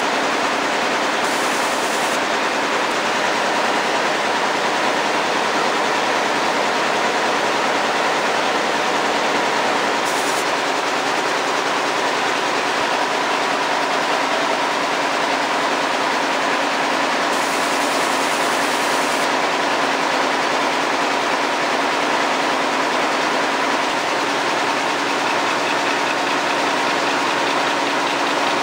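Air-jet weaving looms running in a weaving shed: a loud, steady, dense machine din with a faint constant hum running through it.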